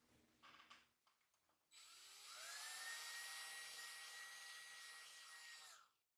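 Cordless DeWalt 20V drill/driver driving a screw into a toy tractor part: the motor whine rises to a steady high pitch, runs for about four seconds, then stops abruptly. A brief rattle of parts being handled comes about half a second in.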